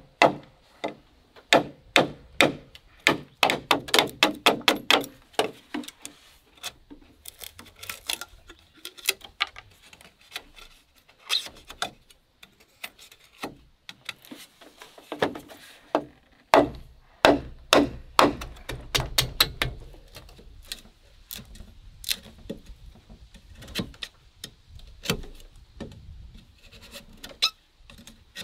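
Large bush knife chopping and chiselling a hole into a bamboo pole: sharp woody knocks coming in quick runs of about three or four strikes a second, with pauses between runs.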